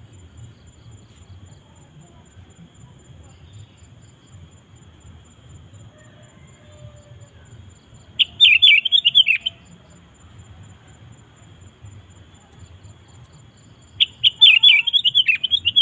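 Sooty-headed bulbul (kutilang) singing: two short bursts of quick notes, one about halfway through and one near the end, over a faint low hum.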